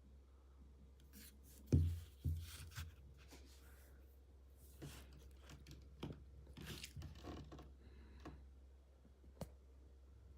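Hands handling a powerbank and its packaging: rustling and crinkling, with a few knocks about two seconds in and a sharp click near the end.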